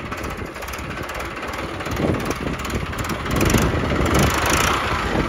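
Modified tractor's engine running under way, getting louder about three seconds in as it is driven harder.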